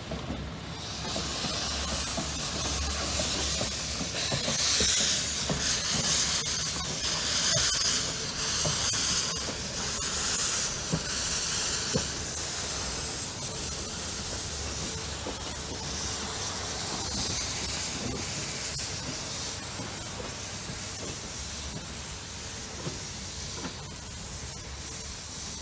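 Replica steam locomotive "York" blowing steam with a loud, steady hiss as it pulls past: steam venting from the cylinder cocks low at the front. The hiss is loudest in the first half and fades gradually as the engine draws away.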